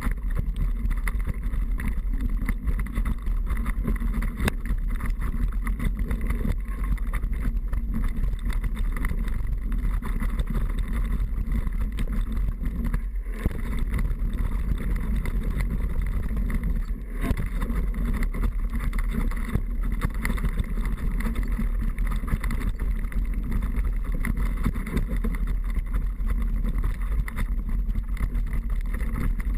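Steady rushing wind on the microphone during a downhill mountain-bike run, with deep rumble and scattered knocks and rattles from the bike over rough ground.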